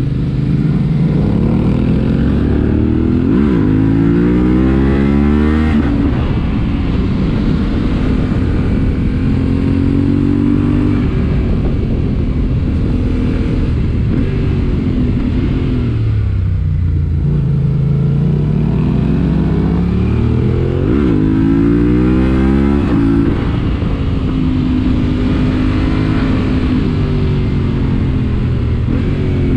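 Yamaha Ténéré 700's parallel-twin engine under way, its pitch climbing in steps as the bike accelerates through the gears and then holding steady. About sixteen seconds in the engine note drops low as the bike slows, then climbs through the gears again.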